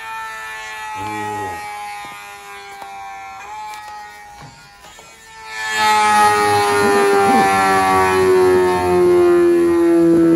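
Sport motorcycle engine held at high revs, its pitch sinking slowly, played back from a video and heard through a headphone ear cup; it grows much louder about halfway through.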